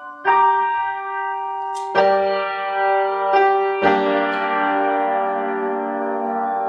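Piano playing the closing chords of a piece: a few struck chords, then a final full chord held and left ringing.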